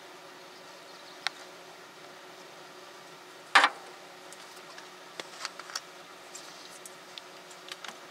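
Handling noises in a car's engine bay while the brake master cylinder reservoir is opened and a plastic bottle of brake fluid is readied. There is a sharp click about a second in, a louder short clunk a little past the middle, then a scatter of small clicks and taps.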